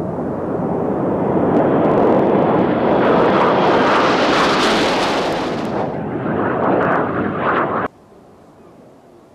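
Jet noise from a close formation of Aermacchi MB-339 jet trainers passing overhead, swelling to a loud peak near the middle and easing off, then cutting off suddenly about eight seconds in.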